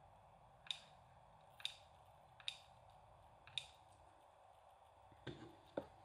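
Quiet handling of a mini hot glue gun and thin wire fairy lights: four light clicks about a second apart, then two soft knocks near the end, over faint room hum.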